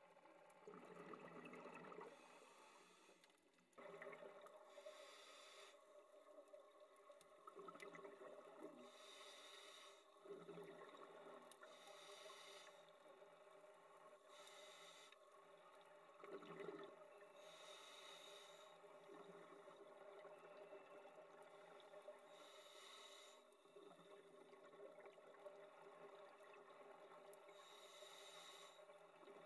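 Faint, muffled underwater sound of scuba divers breathing through their regulators, with a burst of exhaled bubbles every few seconds over a steady hum.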